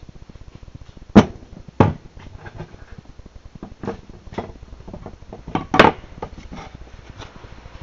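Sharp knocks and taps on a wooden tabletop while things are handled. There are two loud knocks about a second in, lighter taps in the middle, and a loud cluster of knocks near six seconds.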